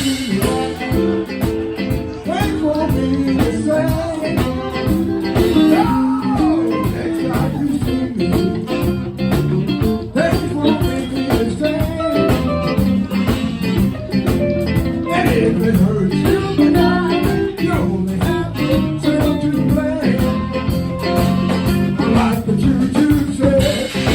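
Band playing guitar-driven blues-rock live, with electric guitar and a steady rhythm section.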